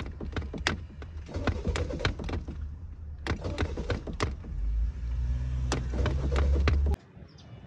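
Car engine being cranked, under a steady low rumble with many sharp clicks and knocks, while the driver pumps the accelerator pedal to get a hard-starting car going. Past the middle a louder low drone builds, then cuts off suddenly near the end.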